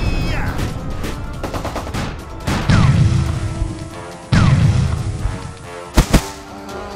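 Background music with added explosion sound effects: two booms, each with a short falling whistle, about two and a half and four seconds in, then two sharp bangs close together near the end.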